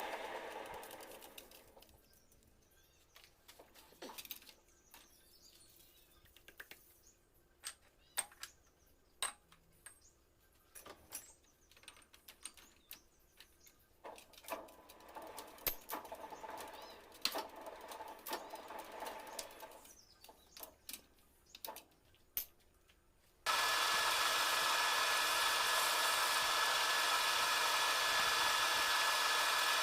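Manual metal lathe running down over the first two seconds, then scattered clicks and knocks for about twenty seconds, and the lathe running steadily again, starting abruptly about 23 seconds in.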